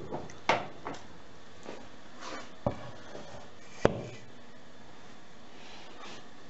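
Metal ring cake pan being lifted off the oven rack and set down on a wooden board: a handful of short knocks and clunks, the sharpest a little under four seconds in, over a steady hiss.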